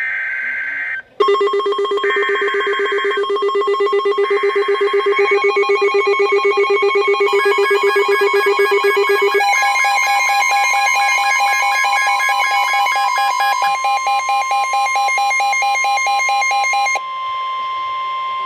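Emergency alert tones for a tornado warning: three short, screechy digital header bursts (SAME data) about a second apart, overlaid from about a second in by loud, rapidly pulsing electronic alarm beeps. About halfway through, a steady single-pitch Weather Radio warning alarm tone starts; the beeping stops near the end and the steady tone goes on alone.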